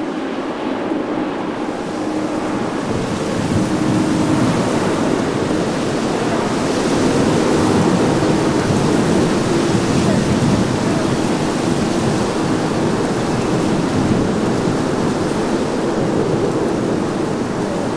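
Airbus A330-200 airliner on final approach with gear down, jet engine noise from low overhead as it moves away toward the runway: a broad steady rush with a faint low hum, building over the first few seconds and staying loud.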